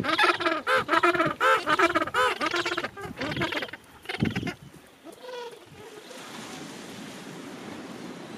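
Gentoo penguin giving its braying call: a run of harsh, pitched notes repeated about three to four times a second that stops after about three and a half seconds. A short loud burst of noise follows about four seconds in, then a few fainter calls and a steady background hiss.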